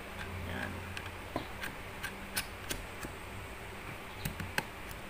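A handful of sharp, irregularly spaced plastic clicks and taps as a small microphone is fitted and locked onto the side mount of a phone-holder and light rig, over a steady low hum.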